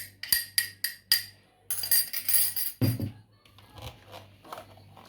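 Utensil clinking rhythmically against a mixing bowl while batter is stirred, about three or four clinks a second. A longer scraping rush and a dull thump follow, then lighter clinks.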